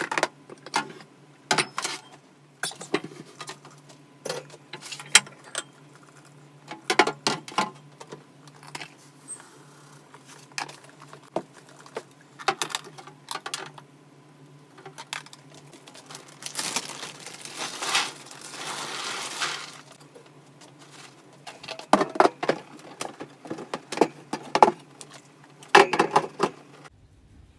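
Hard plastic and ceramic pieces clicking and knocking as a plastic hamster cage and carrier are handled and set up, with bowls set down. A longer rustling hiss runs for a few seconds a little past the middle.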